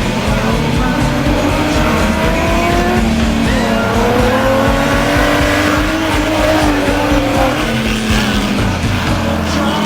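Several Stock Omega race car engines running hard together, their pitches rising and falling as the cars accelerate and lift off.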